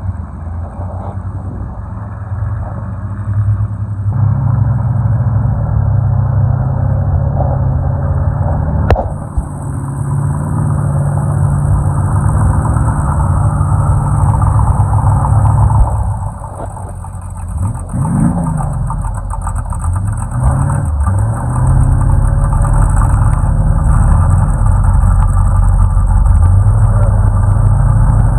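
Off-road vehicle engine running hard, with the revs dropping and climbing again about two-thirds of the way through. A sharp knock about nine seconds in is followed by a steady hiss.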